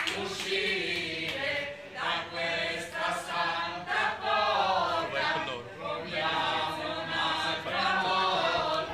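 A group of people singing together, several voices at once, with wavering held notes.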